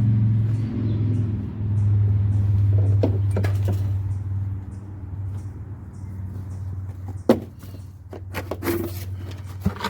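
Stick welder humming steadily with a hissing arc as aluminum rods are tried on a test piece, the arc lasting about four and a half seconds before it drops away. A few sharp knocks and clicks follow near the end.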